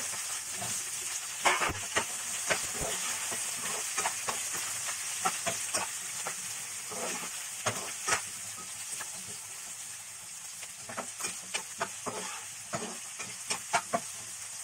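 Cubed onions and capsicum with chopped garlic and green chillies frying in hot oil: a steady sizzle with scattered sharp clicks and taps as a spatula stirs them in the pan.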